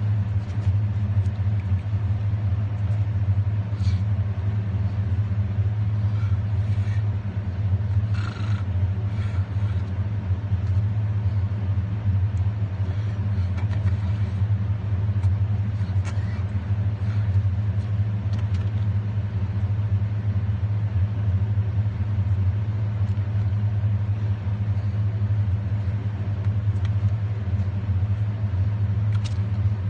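Steady low rumble of a vehicle engine running, with a few faint ticks and rattles.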